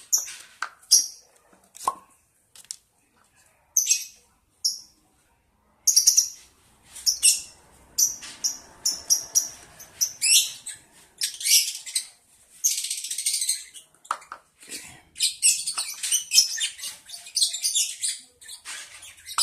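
Young lovebird chick chirping in short, high calls, sparse at first and then coming quickly one after another from about six seconds in: the begging calls of a hungry chick waiting to be hand-fed.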